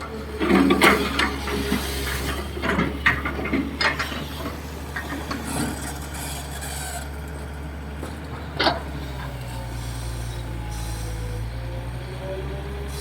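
Hitachi EX220-3 long-boom excavator at work: its diesel engine runs steadily under a cluster of scraping and knocking sounds over the first six seconds, then one sharp knock about two-thirds of the way through. In the second half a faint tone dips and rises in pitch over the engine.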